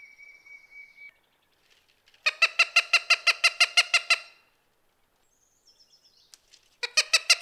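Cooper's hawk giving its kac-kac-kac call: a rapid run of harsh, even notes at about seven a second for some two seconds, then a second run starting near the end. A faint thin whistle sounds at the start and a faint high call comes just before the second run.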